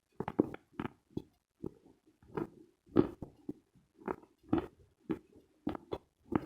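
A lump of dry, dense Khrapovsky chalk being chewed close to the microphone. Each bite gives a sharp crunch, about two to three a second in a steady rhythm.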